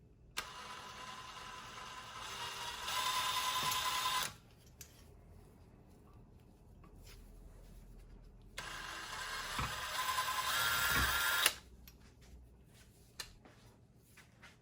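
Power drill running in two bursts, about four and three seconds long, each growing louder with a steady motor whine. It is drilling out and backing out a stripped screw with a screw extractor. Small clicks and handling noises fall between the bursts.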